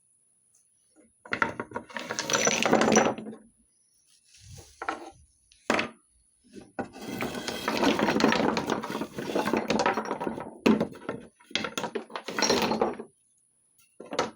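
Small hard objects rattling and clattering as they are handled while a project is taken apart, in several bursts, the longest about three seconds.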